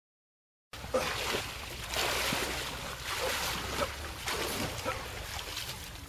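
A moment of dead silence, then a steady rushing noise like wind on the microphone, with small scattered knocks and a low hum underneath.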